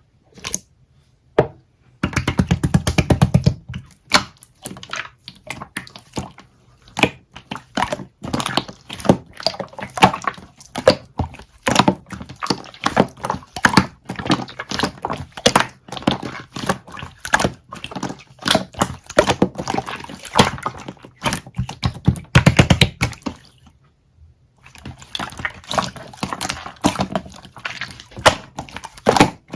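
Slime being squished and pressed by hand, making a dense run of wet clicks and pops, with a short pause about three-quarters of the way through.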